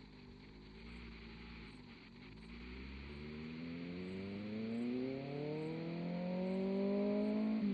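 2024 Kawasaki ZX-6R inline-four with an M4 GP19 exhaust accelerating toward the microphone, its engine note climbing steadily in pitch and getting louder. The pitch drops sharply just before the end.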